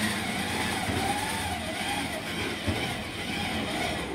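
Flatbed recovery truck's engine running steadily, with a wavering whine over it.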